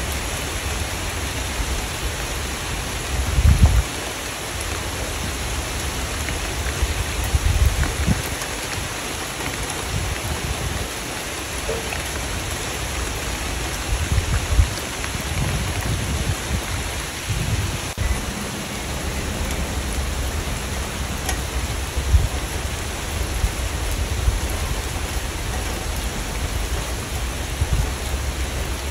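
Steady rain falling, an even hiss of drops. Several brief low rumbles rise under it through the stretch.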